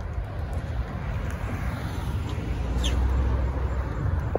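Outdoor traffic noise: a steady low rumble that swells about three seconds in as a vehicle passes, with a brief high chirp at about the same point.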